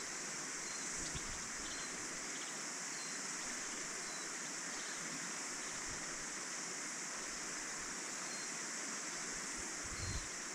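Small stream flowing over stones, under a constant high-pitched chorus of cicadas, with faint short chirps repeating every second or so.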